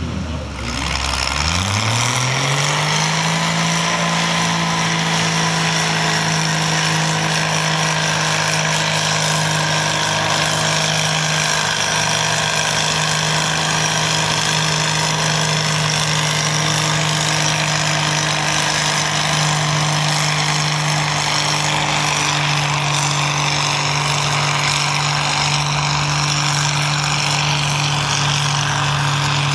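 Oliver farm tractor engine revving up over the first two or three seconds, then held at a steady high pitch at full throttle while dragging a weight-transfer pulling sled.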